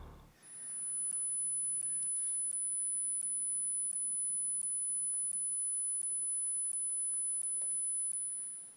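A steady, very high-pitched electronic tone, held at one pitch, with faint clicks about every 0.7 seconds; it starts about half a second in and cuts off just before the end.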